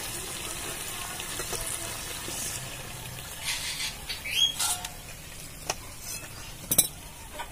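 Chicken masala sizzling softly in a metal pan, followed by a few sharp metal clinks as the pan is taken off the clay stove and its steel plate lid and tongs are handled.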